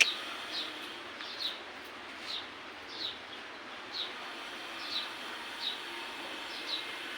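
A bird calling a short, high, falling chirp over and over, about once a second, eight times, over a steady faint hiss.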